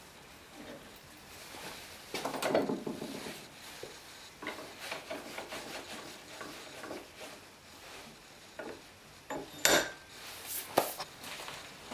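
Metal clinks, rattles and knocks as a machinist's bench vise on a plywood base is clamped to a wooden workbench and handled, with a rattling stretch about two seconds in and two sharp metal clacks near the end.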